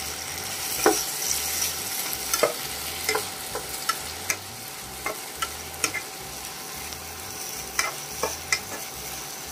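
Chopped onions and tomatoes sizzling in oil in a kadai as they are sautéed and stirred, with irregular taps and scrapes of the stirring utensil against the pan every half second to second.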